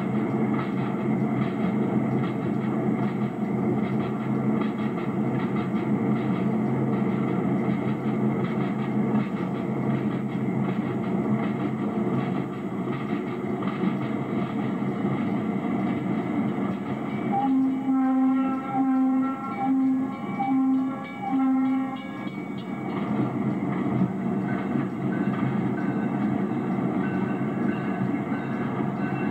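Diesel switch locomotive running along the track with its engine's steady drone. About halfway through, its horn sounds in about five short blasts over some four seconds.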